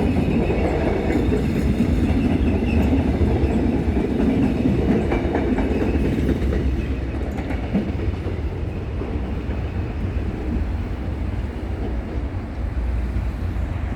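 A train running through a railway level crossing, its wheels rumbling and clattering on the rails. The rumble eases off about halfway through.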